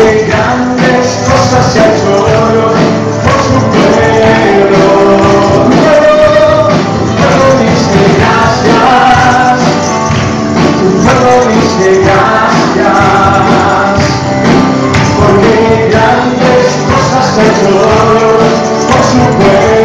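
Live Christian worship music, loud and steady: a choir singing over a band, with tambourines shaking on the beat.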